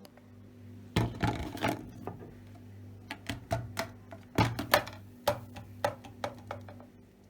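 A run of irregular light clicks and taps, clustered about a second in and again past the middle, over a steady low hum.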